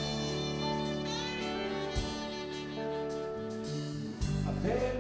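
Live band playing an instrumental passage: electric guitars, bass and drums over long held chords.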